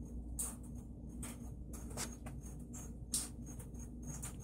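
Faint steady hum of a BMW's electric coolant pump running through its bleeding cycle, with irregular small crackles and trickles of coolant and air bubbles in the expansion tank.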